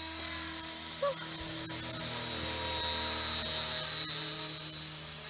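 Radio-controlled model helicopter flying overhead: a steady high motor whine over a low rotor hum, growing louder toward the middle and then easing off as it moves away.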